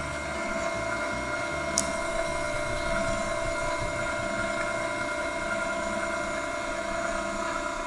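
Electric vertical slow (auger) juicer running: a steady motor whine with an uneven low grinding beneath it as it crushes fruit and juice flows from the spout.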